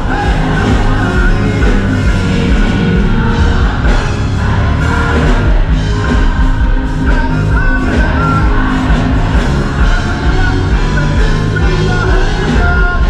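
Live gospel music, loud and continuous: a large children's choir singing with a band, a male lead singer on a microphone calling out over them.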